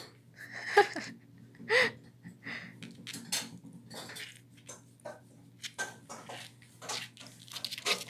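Light clicks and rustles as a small dog is handled on a hard floor: claws tapping as it shifts its feet, and a hand on its paw and fur. Two short squeaky sounds come about one and two seconds in.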